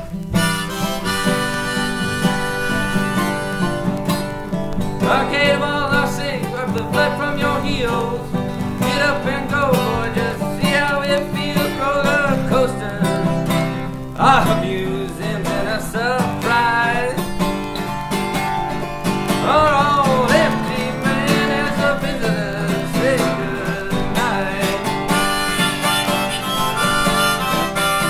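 Harmonica and acoustic guitar playing a folk-blues tune; a few seconds in, the harmonica takes a wavering, bending melody over the steady guitar chords.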